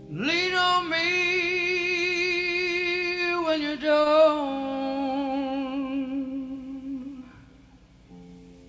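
Male rock singer holding a long wordless note with wide vibrato, swooping up into it at the start, stepping down slightly about three and a half seconds in and fading out near the end, over a soft sustained keyboard chord. A soundboard recording of a live vocal improvisation.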